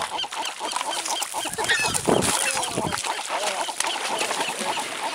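A flock of gulls calling over and over in a rapid clamour, with wings flapping as gulls and brown pelicans crowd in to feed on fish scraps; a louder flurry comes about two seconds in.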